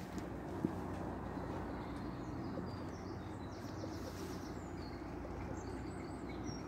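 Small birds chirping, with a quick trill about halfway through, over a steady low background rumble.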